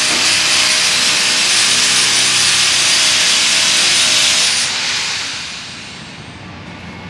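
Handheld power tool running at full speed with a steady motor whine, then switched off about four and a half seconds in and winding down.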